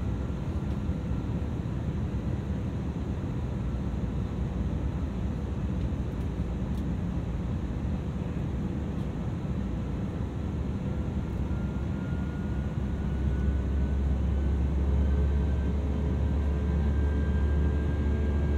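Airbus A320-200ceo engine and air noise heard inside the cabin, a steady rumble and hiss. From about two-thirds of the way through, a thin engine whine rises in pitch and the low rumble grows louder, as the engines spool up.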